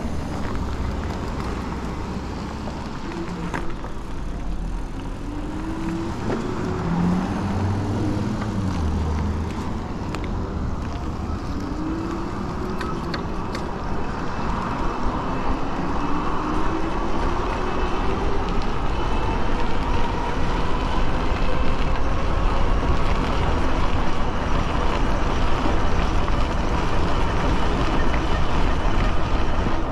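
Wind rush and tyre hiss on wet pavement from an e-bike speeding up, with an electric motor whine that rises slowly in pitch through the middle. The rush grows louder toward the end as the bike nears 30 mph.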